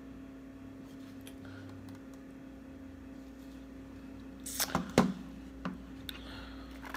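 Paper wrapper or napkin being handled: a few short crinkles and clicks, the loudest about five seconds in, over a steady low hum.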